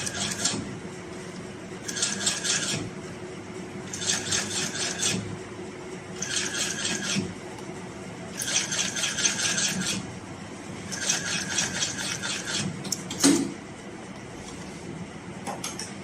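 HIGHTEX 169 industrial sole-stitching machine sewing in short runs of rapid stitches, each about a second long, stopping and starting again with pauses between, as its servo motor and needle positioner halt the needle between runs. A single loud knock about 13 seconds in, after the last run.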